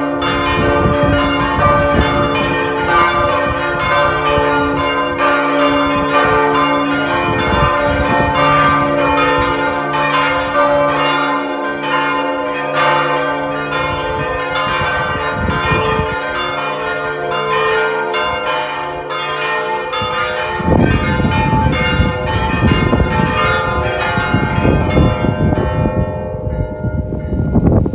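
Split cathedral's old bronze church bells, cast partly by De Poli and partly by Cukrov, ringing together in a full peal: overlapping strikes, several a second, each leaving a long ringing tone. The peal thins out and fades in the last couple of seconds.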